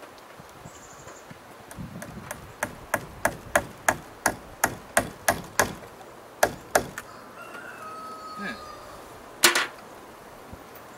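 Hammer striking into a wooden fence post: about a dozen quick, evenly spaced blows, some three a second, then a pause and one louder blow near the end.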